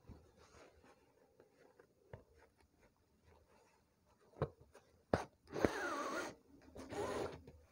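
Ribbon embroidery: a satin ribbon being pulled through fabric held taut in an embroidery hoop. A few light taps and clicks come first, then two scraping pulls of about half a second each near the end.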